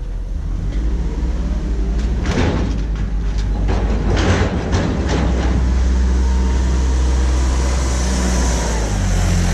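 A vehicle engine running steadily, with a run of metal clanks and rattles about two to five seconds in.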